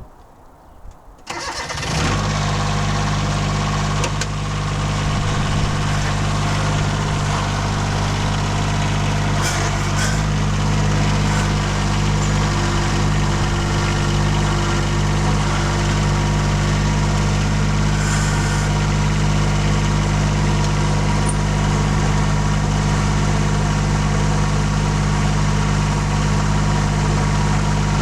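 Cub Cadet 1772 garden tractor's diesel engine cranking briefly and catching about two seconds in, then idling steadily.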